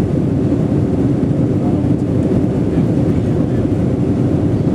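Airliner cabin noise: a steady, loud low drone of jet engines and rushing air heard from inside the passenger cabin as the plane takes off and climbs.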